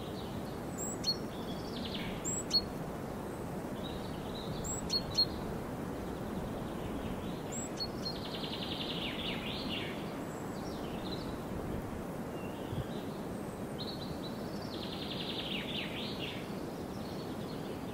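Outdoor ambience: a steady low hiss of background noise, with small songbirds calling and two rapid trills, one about halfway through and one near the end. A few sharp clicks come in the first five seconds.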